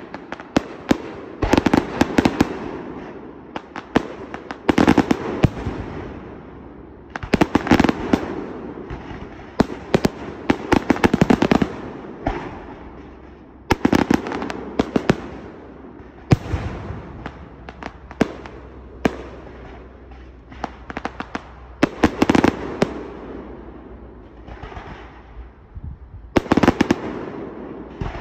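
Professional fireworks display: aerial shells and multi-shot cakes firing and bursting in rapid clusters of sharp bangs with crackle, a new volley every two to three seconds.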